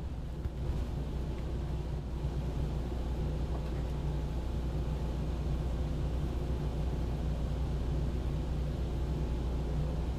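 Steady low mechanical hum with a constant droning pitch.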